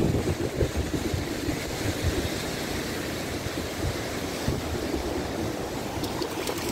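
Wind buffeting the microphone over the steady rush of surf breaking on coastal rocks.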